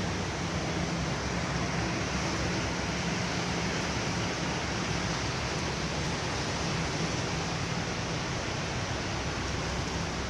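Steady rush of heavy cyclone rain and wind, even and unbroken, with a faint low hum underneath.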